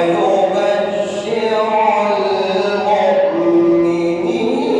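A male reciter chanting the Quran in the melodic mujawwad (tajweed) style, drawing out long, ornamented notes.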